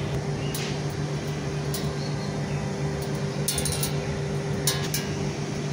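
Arc-welding machine humming steadily at idle with no arc struck, with a few light metallic ticks and clicks.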